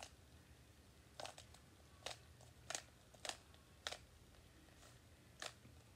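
Rubik's cube faces being turned by hand, giving faint, sharp plastic clicks, about seven at irregular intervals, as the cube-in-the-cube pattern is undone.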